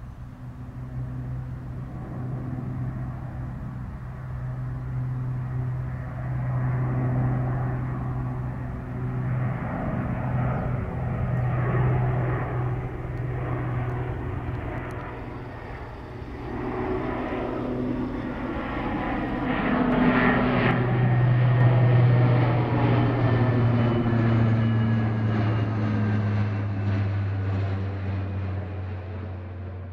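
Four-engine Lockheed C-130 Hercules turboprop flying low overhead: a steady low propeller drone with a higher turbine whine that grows louder to its peak about two-thirds of the way through. Its tones then slide lower as the aircraft passes over and away.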